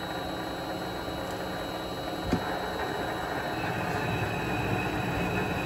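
Vevor MX 400 mini lathe running at about 300–400 RPM: a steady motor and gear hum with a faint high whine, and a single sharp click a little over two seconds in.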